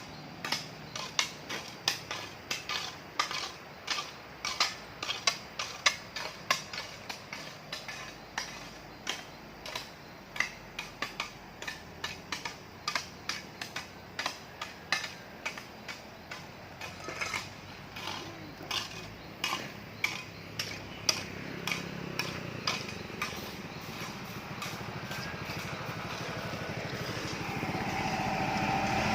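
Repeated sharp strikes of hand tools on stone and gravel during road repair, roughly two a second and uneven in rhythm. Near the end a motor vehicle approaches, growing louder.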